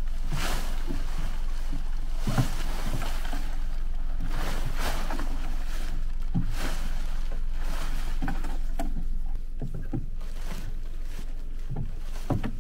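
Large Kazmi X9 tent's synthetic fabric being dragged and shaken out across a wooden deck: repeated rustling swishes of the canvas, with footsteps on the deck boards, getting quieter after about nine seconds.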